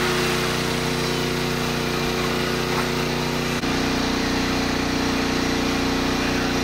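Steady drone of an engine running at idle, with a hum of several steady tones; the hum's pitch shifts abruptly about three and a half seconds in.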